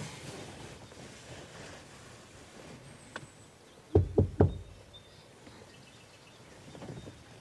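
Three quick knuckle knocks on a car's side window glass, about four seconds in.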